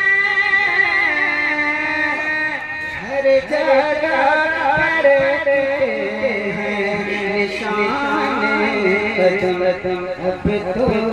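A man singing a naat, an Islamic devotional song, into a microphone. He holds a long steady note that steps down in pitch about a second in, then moves into wavering, ornamented melodic runs.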